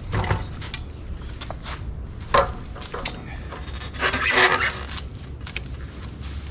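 Clacks and metallic clatter as a heavy fat-tire e-bike is lifted and seated into a hitch-mounted bike rack: a sharp knock a couple of seconds in and a longer rattle about four seconds in, over a low steady hum.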